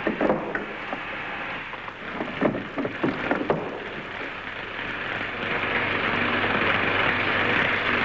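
Crackling, hissing noise with scattered sharp clicks in the first half, then a steady hiss that swells louder from about five seconds in.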